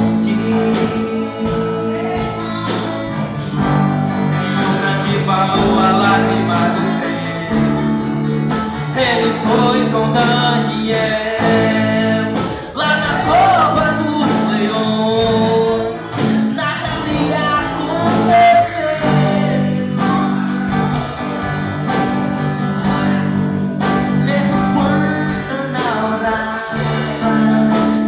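Live church band playing a gospel song, with guitar and singing over a steady band accompaniment.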